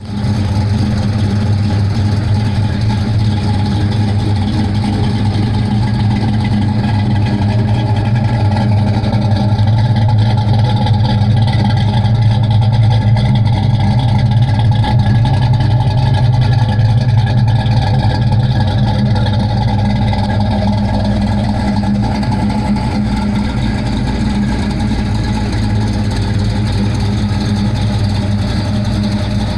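A 347 cubic-inch V8 in a Fox Body Mustang, fitted with a Comp Cams camshaft of .560 lift and exhausting through Flowmaster mufflers, idling steadily.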